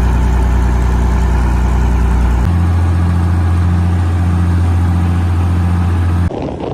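A vehicle engine running loud and close, a steady hum that steps up to a higher engine speed about two and a half seconds in. It cuts off abruptly near the end.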